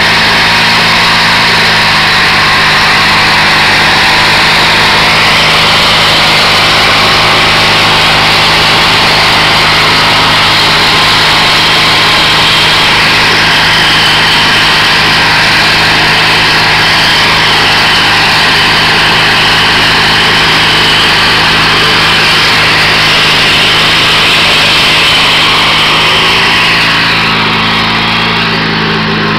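Garden tractor engine running steadily under load while driving a rear-mounted tiller through the soil. It gets a little quieter near the end as the tractor moves away.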